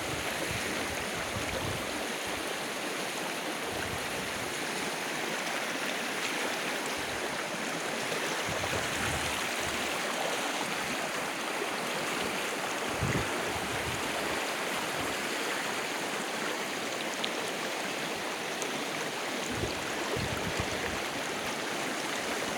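Floodwater rushing steadily, a continuous even wash of flowing water.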